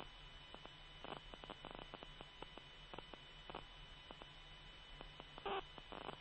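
Faint steady hum and static of an open radio channel with no one transmitting, with scattered faint clicks and crackles.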